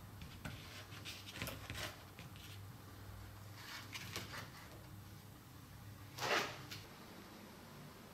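Chrome car door mirrors handled and set down on cardboard: a few light clicks and knocks, then one louder short scrape about six seconds in.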